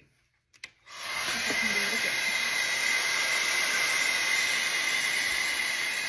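A Webeauty 5-in-1 high-speed hair dryer styler, fitted with its air-wrap curling barrel, switches on about a second in after a short click. It then runs steadily and loudly: a rush of air with a constant high whine.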